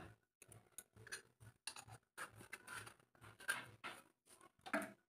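Faint, scattered clicks and rustles of small objects being handled, a few a second, with no steady sound between them.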